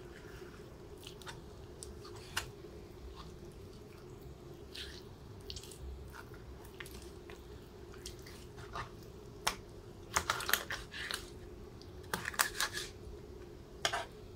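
Knife slicing raw chicken breast on a plastic cutting board: wet squishing of the meat and scattered clicks of the blade against the board, coming in quick clusters about two-thirds of the way through, over a steady low hum.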